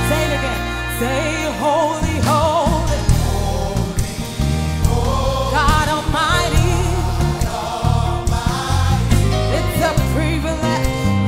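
Live gospel worship music: singers and a choir over a band with sustained bass notes.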